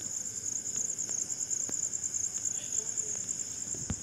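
Steady high-pitched insect chirring, with a few faint clicks.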